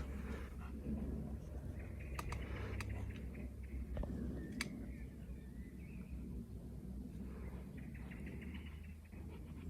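A squeaky rubber ball squeaking in several drawn-out bursts as a young boxer dog chews it, with a few sharp clicks in between.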